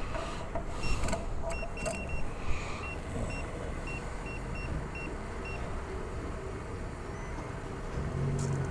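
Motorcycle engine running with a low, steady rumble. Over it come a few sharp knocks and a run of about a dozen short, high electronic beeps, irregularly spaced, in the first half.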